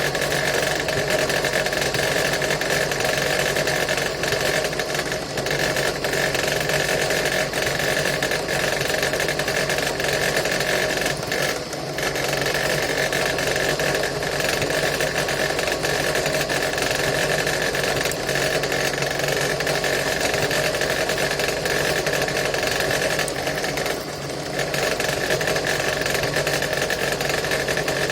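ZITREK DP-82 drill press running steadily while drilling with a thin 1.5 mm bit. Its motor makes a continuous hum that dips briefly twice.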